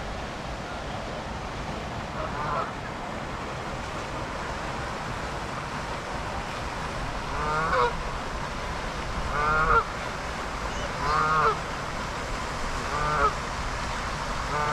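Canada geese honking: one faint honk about two seconds in, then a run of loud honks roughly every two seconds through the second half. Under them is a steady rushing noise.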